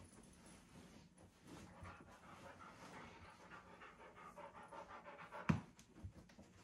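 German Shorthaired Pointer panting in labor while whelping her litter. A single sharp knock comes about five and a half seconds in.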